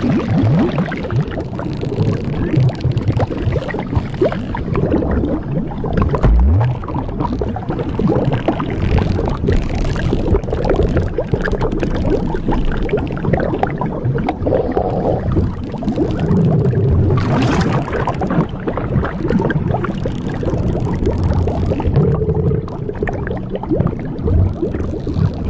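Blueberry-inflation sound effect: continuous low gurgling and sloshing of liquid, with a short rising low groan about six seconds in.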